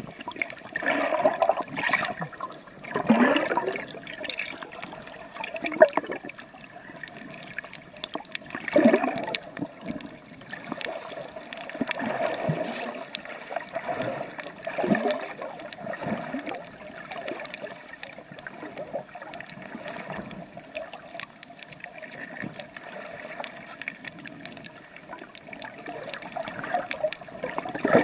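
Water sloshing and gurgling around a camera held in the sea while swimming, with louder surges every two to three seconds.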